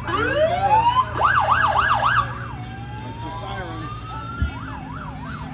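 Emergency vehicle siren switching between wail and yelp: a rising sweep, a burst of fast up-and-down yelps, a long slow rising wail, then yelping again near the end. A brief low thump comes about four and a half seconds in.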